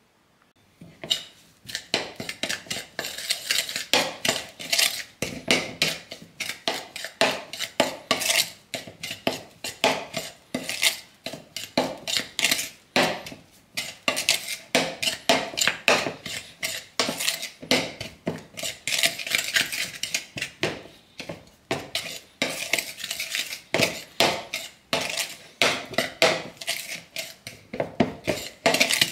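Metal spoon stirring and mashing crumbled egg yolk in a bowl, clinking and scraping against the bowl in quick repeated strokes that start about a second in.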